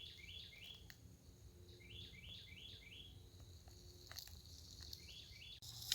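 Faint songbird chirping in short runs of three to five quick, evenly spaced notes: one at the start, one about two seconds in, and one near the end.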